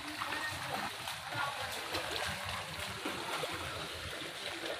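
Muddy floodwater running and splashing: a steady watery noise dotted with many small splashes.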